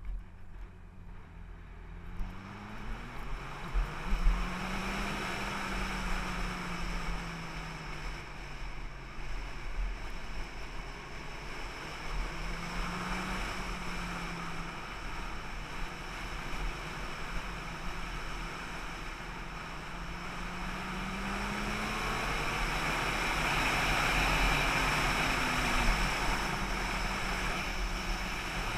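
Motorcycle engine on the move, its pitch rising and falling several times as it speeds up and eases off, under a steady rush of wind that swells louder past the middle.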